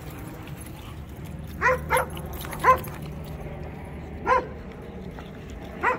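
A dog barking: five short, fairly high-pitched barks, a quick pair about two seconds in, then single barks spaced irregularly.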